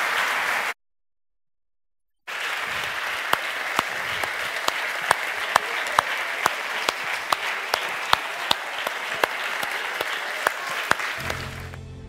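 Audience applause, with many sharp individual claps standing out. About a second in it cuts to silence for a second and a half, then resumes, and it fades out near the end as soft music comes in.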